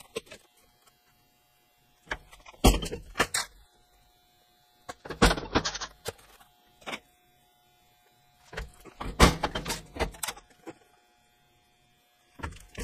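Thin sheet metal being handled and set against the steel bed of a metal shop machine: several short bursts of metal knocks and rattles, with quiet gaps between.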